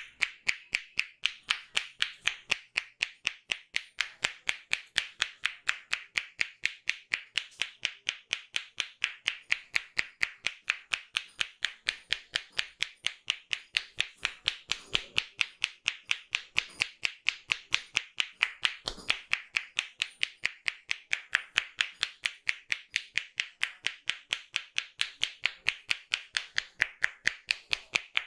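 A barber's hands striking a client's head in a percussive Indian head massage: sharp, even slaps at about four a second, kept up steadily.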